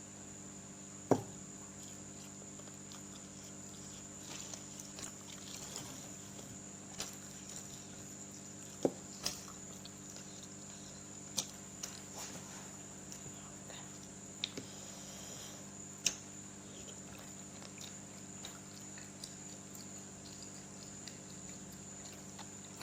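Eating sounds: a handful of sharp clicks and taps of cutlery against tableware, spread out over a steady faint hum.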